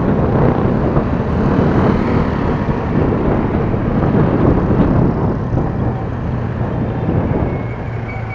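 Wind rushing over the microphone of a moving Honda Click 125 scooter, mixed with its small single-cylinder engine and tyre noise in passing traffic. The rush eases over the last couple of seconds, leaving a steady engine hum as the scooter slows.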